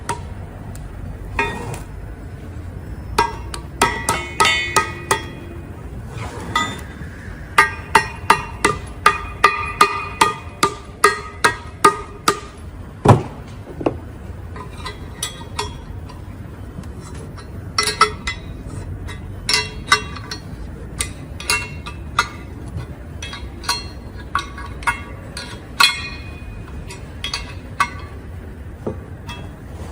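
Metal-on-metal hammer taps and clinks on a fitting tool, seating a part into a truck air disc brake caliper. Sharp ringing strikes, irregular at first, then a quick run of about two a second, with one heavier knock about halfway through, then scattered taps.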